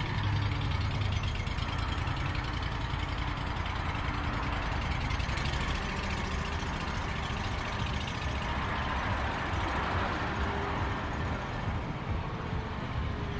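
Engine of a new Bobcat ProCat 6000 zero-turn mower running steadily as the mower drives across pavement.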